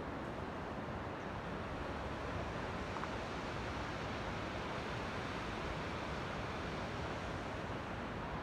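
Steady rushing outdoor noise, even throughout, with no distinct events.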